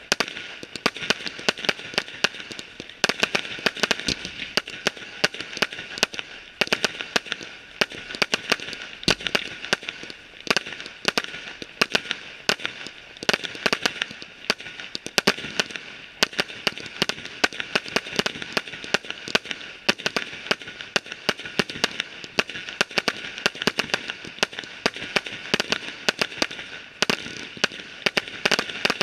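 Fireworks display going off in a continuous rapid barrage of sharp cracks and pops, many each second.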